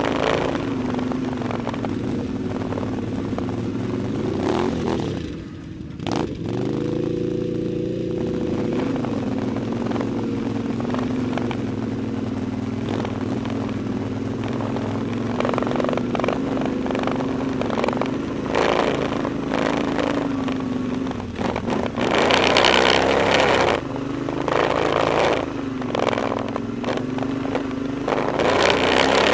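ATV engine running on a trail ride at a steady pace: the note drops briefly about five seconds in as the throttle eases, then climbs again as it picks up speed. From about halfway on, several bursts of loud rushing noise come over the engine.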